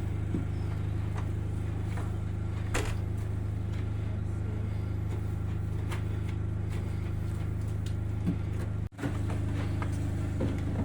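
A motor running steadily with a low, even hum, with a few light knocks over it. The hum breaks off for an instant near the end, then carries on.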